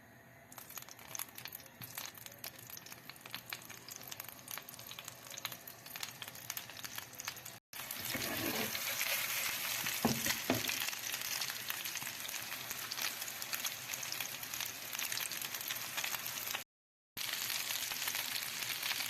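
Food frying in hot oil in a pan. It starts as scattered crackling and, after a brief break about eight seconds in, becomes a dense, steady sizzle, broken again by a short gap near the end.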